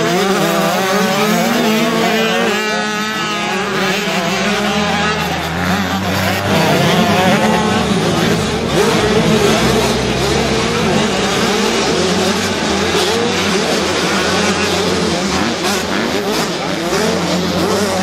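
A pack of motocross bikes racing, many engines revving up and down together as the riders accelerate through the corners.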